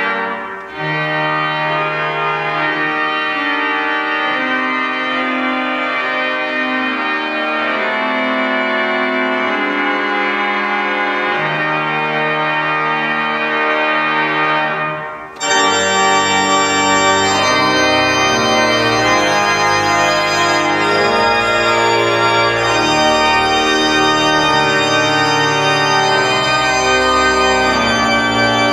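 Church organ playing slow sustained chords. About halfway through there is a short break, after which the organ comes back fuller, with deep bass notes added underneath.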